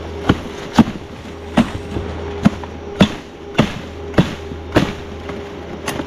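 A series of about nine sharp knocks or chopping strikes, spaced unevenly about half a second to a second apart, over a steady low hum.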